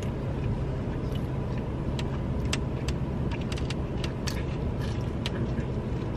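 Steady low hum of a parked vehicle idling, heard from inside the cabin, with scattered small clicks and crinkles throughout.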